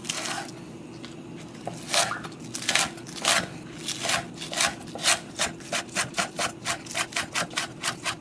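Knife chopping scallions and garlic chives on a cutting board: a few scattered strokes at first, then a steady run of about three cuts a second.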